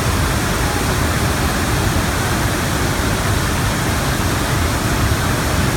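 Iguaçu Falls pouring into its mist-filled gorge at close range: a loud, steady, unbroken rush of falling water, heavy at the low end.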